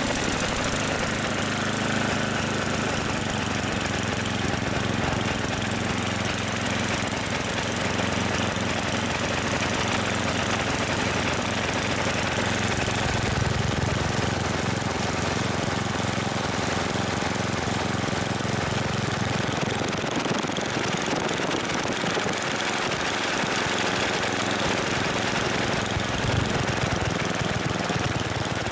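Ariens 824 snowblower's 8-horsepower single-cylinder engine running steadily just after an electric start. It has a freshly fitted spark plug, which the owner credits with a big improvement in its revving up and down.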